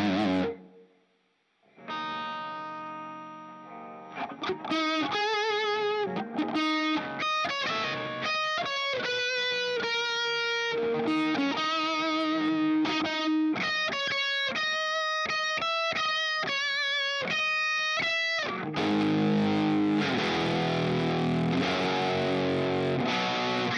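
Overdriven electric guitar, a Fender Stratocaster through overdrive pedals and an amp simulator, playing a rock piece. A dense distorted passage breaks off at the start, a chord rings out after a short gap, then a melodic lead of single held notes with vibrato runs until heavy distorted chording comes back near the end.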